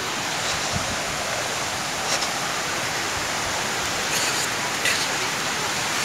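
Steady rushing hiss of flowing water, with a few faint brief rustles on top.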